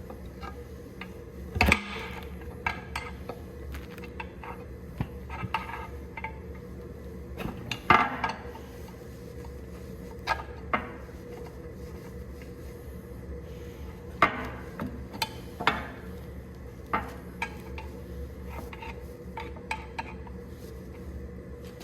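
Metal tools and engine parts clinking and knocking at irregular intervals during an engine teardown, over a steady background hum.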